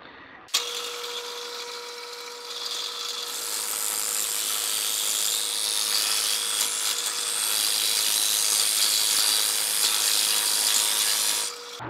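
Drill press boring into a maple handle with a Forstner bit: a steady motor whine under the hiss of the bit cutting wood. It starts suddenly about half a second in, gets louder from about two and a half seconds in, and stops just before the end.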